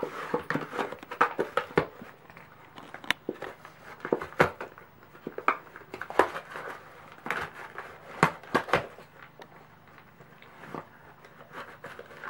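A Pembroke Welsh corgi crinkling and tearing a snack bag and paper wrapping with its mouth: irregular sharp rustles and rips.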